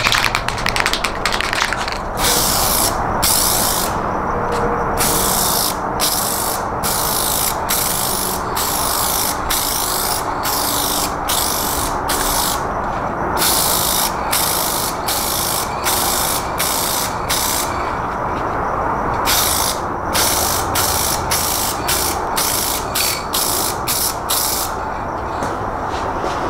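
Aerosol spray can of automotive clear coat rattling as it is shaken, then spraying in a long series of short hissing passes, about one a second with brief gaps, over a steady lower rushing noise.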